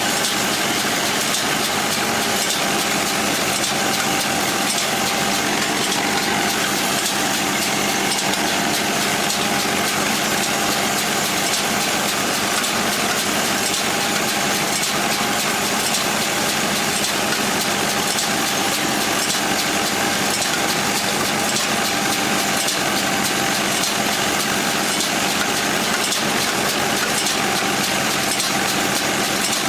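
Farm machinery engine running steadily at a constant speed, with a steady mechanical whine over it.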